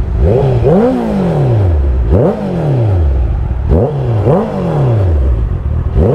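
Honda 650 inline-four sport bike idling while the throttle is blipped about five times. Each time the revs shoot up sharply and then fall back slowly to idle.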